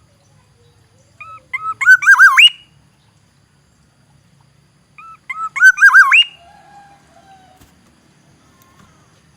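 Black-naped oriole singing: two identical phrases about four seconds apart, each a few short notes leading into a run of fluty, looping whistles that ends in a quick rising sweep.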